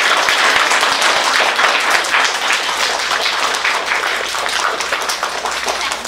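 Audience applauding, many hands clapping at once, with the performers clapping along; it eases off slightly near the end.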